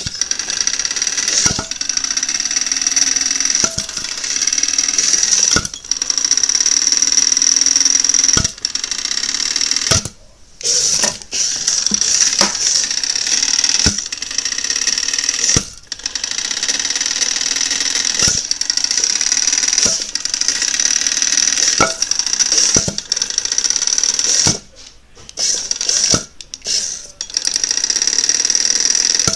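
Small electric motors of a Hexbug Tombstone toy battle robot whirring with a high whine, stopping briefly a few times. Occasional sharp knocks are heard along with it.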